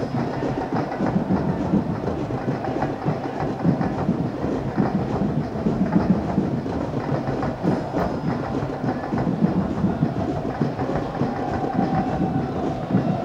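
Steady din of stadium crowd noise from football spectators, a dense continuous murmur with no single event standing out.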